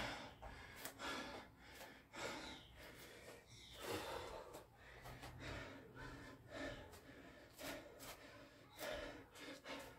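A person breathing hard and gasping, with short breaths roughly once a second, from heavy exertion.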